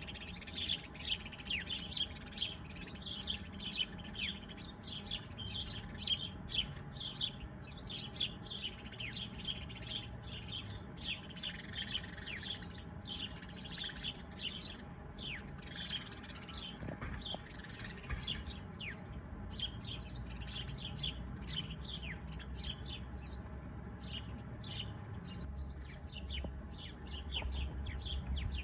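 Many small songbirds chirping and twittering together in a dense chorus of quick, high, downward-sliding notes, thinning out in the last third, over a low background rumble.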